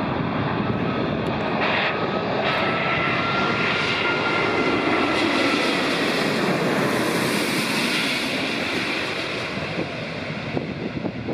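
Airbus A380 airliner's four Rolls-Royce Trent 900 turbofans on final approach. The jet noise swells as the aircraft passes low overhead, loudest about seven seconds in, with a faint thin engine whine sliding slightly in pitch. It eases off as the aircraft moves away toward the runway.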